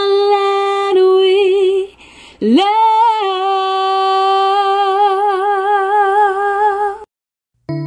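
A woman singing long, held notes with vibrato, with little or no accompaniment; the second note is held for about four seconds and then cuts off suddenly. Different music begins right at the end.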